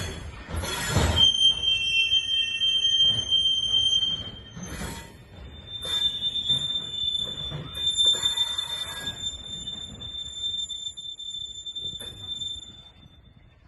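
Freight wagons being shunted in a rail yard, their wheels on the rails giving long, piercing, high-pitched squeals: one from about a second in to about four seconds, a second from about six seconds in until near the end. Short clanks and knocks from the wagons come between the squeals.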